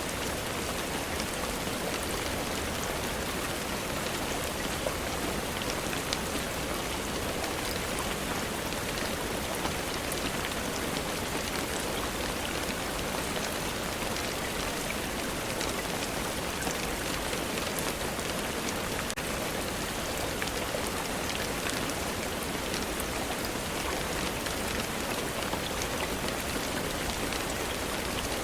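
Steady rainfall: a dense, even hiss with scattered small ticks of drops.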